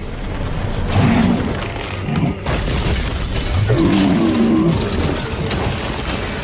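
Cartoon fight sound effects: crystal spikes shattering and rock breaking with heavy booms, over dramatic music. A monster growls and roars about a second in and again around four seconds in.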